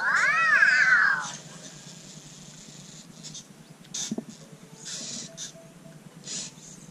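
Cozmo toy robot giving a short electronic chirp that rises and then falls in pitch, lasting just over a second. About four seconds in comes a light knock as one of its light cubes is set down on the wooden floor, among a few faint rustles.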